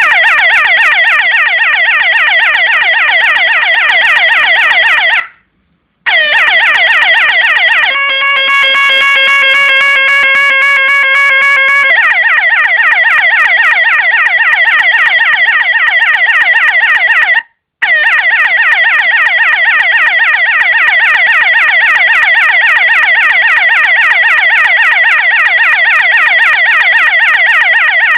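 Electronic police siren from a homemade 12 V microcontroller siren kit, sweeping rapidly up and down in a fast yelp. It cuts out briefly about five seconds in, changes to a steady horn tone for about four seconds, returns to the fast sweep, and drops out once more for a moment near seventeen seconds. A faint regular clicking runs underneath.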